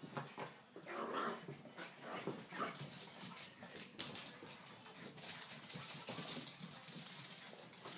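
Puppies whimpering and yipping as they play, short high calls in the first few seconds, followed by a stretch of scuffling and scratching noise.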